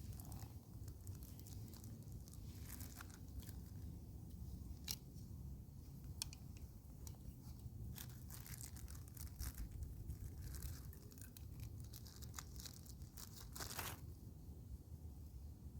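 Wind rumbling on the microphone, with scattered sharp crackles and rustling over it and a denser burst of rustling near the end.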